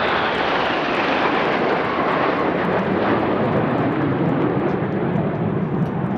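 Jet noise from the Red Arrows' formation of nine BAE Hawk T1 trainers, their Adour turbofan engines giving a loud, steady rush as they fly past, with a faint falling whine near the start.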